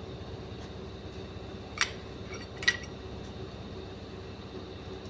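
Two short metallic clinks, about a second apart, from a piston and connecting rod being handled on a workbench, over a steady machine hum.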